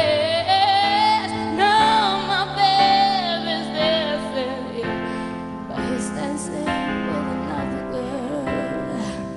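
Woman singing a pop ballad live into a microphone, holding long notes with vibrato and sliding through quick runs, over a band accompaniment led by keyboard.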